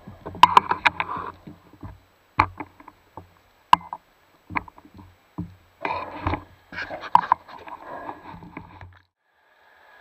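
Underwater clicks and knocks of spearfishing gear, the metal spear shaft and speargun, as a speared fish is handled on the shaft. The sharp knocks come irregularly, with a busier clatter about six seconds in.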